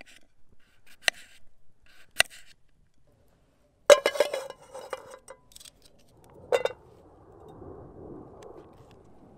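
Knife blade clicking against a metal plate while slicing small potatoes, three sharp clicks about a second apart. After a brief silence, a loud metallic clatter with ringing as a frying pan is set down on the small stainless-steel Firebox wood stove, a single clink a few seconds later, then a faint low rustle.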